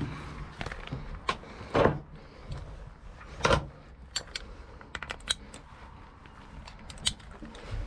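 Racing harness being buckled up: metal latch plates clinking and clicking into a cam-lock buckle, with webbing and hardware knocking about. Two louder knocks come about two seconds in and at three and a half seconds, followed by a run of sharp clicks.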